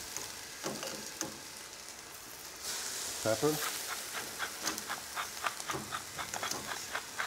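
Chopped onion, shallot, garlic and carrot sizzling gently in a stainless steel sauté pan, being sweated rather than browned. From about halfway through, a pepper mill grinds over the pan in quick, crackly clicks.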